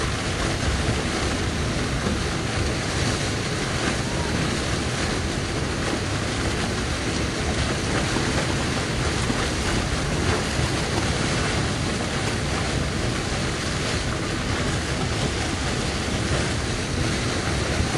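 Markha River in flood as a muddy torrent: a loud, steady rushing with a heavy low rumble underneath, the flow strong enough to make the ground shake.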